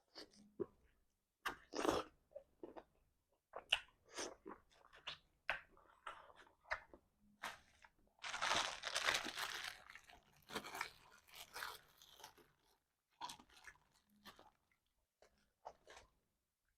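A person chewing and sucking on tender stewed chicken feet close to the microphone: irregular smacking and crunching, with a longer, louder stretch of noise about eight seconds in.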